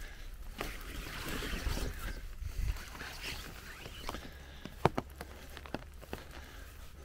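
Footsteps through wet grass and mud, with rustling and scattered sharp clicks, the loudest about five seconds in, over a low rumble.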